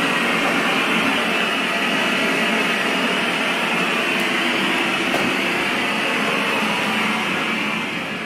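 Baby sound machine playing steady white noise, a hiss that grows fainter near the end.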